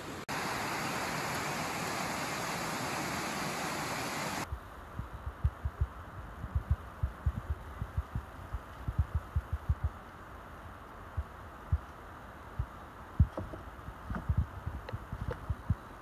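Steady rushing of a rocky creek's cascading water, which cuts off abruptly about four and a half seconds in. After that comes a much quieter stretch of irregular dull low thumps, with a few light clicks near the end.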